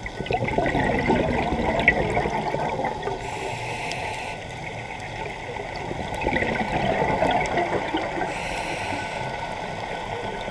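Scuba diver's regulator breathing underwater: exhaled bubbles gurgle out in two long bursts, one just after the start and another about six seconds in.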